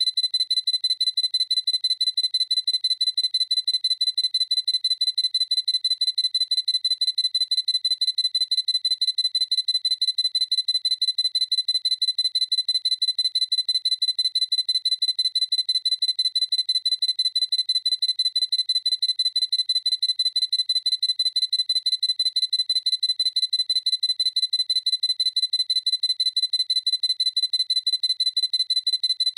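Sony A7C camera's focus-confirmation beep sounding over and over in a rapid, even series of short high-pitched beeps, each the same pitch and loudness.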